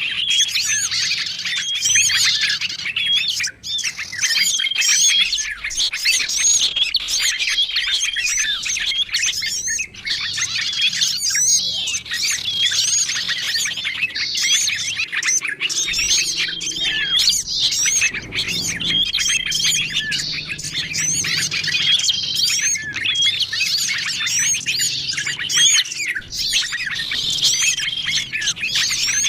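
Bird-lure recording of many small songbirds chirping and twittering over one another in a dense, unbroken chorus, with a short steady whistle note coming back every couple of seconds.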